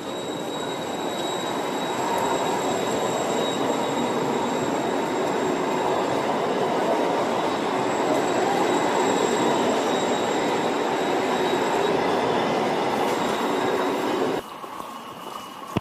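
Siemens NF8 Combino low-floor tram running on its rails: a steady loud rolling noise with a thin high-pitched tone above it. It builds over the first couple of seconds and drops off abruptly near the end.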